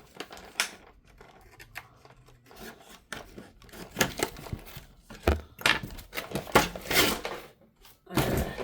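Cardboard toy packaging being cut with a knife and torn open by hand: scattered clicks and scrapes at first, then a louder stretch of ripping and crinkling in the second half.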